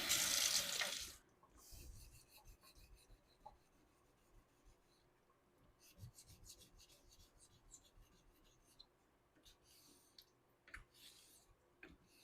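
Straight razor being honed on a 1k Shapton whetstone: strokes of the blade across the stone make short scraping hisses, the loudest in the first second, with light clicks as the razor is flipped on its spine between strokes.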